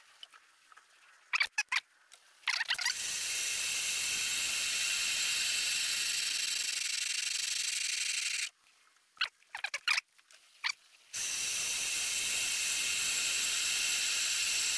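Lathe tool cutting the tread of a miniature steam locomotive's tender wheel: a steady high-pitched hiss for about five seconds that stops abruptly, a few short squeaks, then the cut starts again for the rest of the time. There are also short squeaks before the first cut. The tread is being skimmed a few thou at a time to take out flat spots dragged into it by a seized axlebox.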